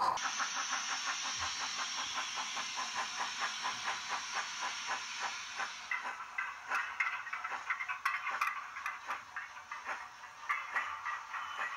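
Model railway train running on the track: a steady high hiss with fast, even clicking for about six seconds. Then the hiss stops and the clicking becomes slower and irregular as a small locomotive and wagon run.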